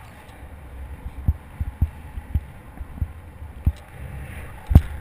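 Wind rumbling on the camera's microphone during a parachute descent under canopy, broken by a series of sharp, irregular thumps, the loudest near the end.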